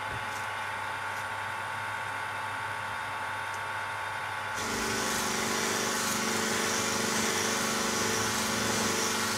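Electric bench buffer running steadily, its felt polishing wheel spinning with a hum and hiss. About halfway in, the sound grows louder, with a deeper hum and more hiss, as a steel knife blade is worked against the wheel with white polishing compound to bring up a mirror finish.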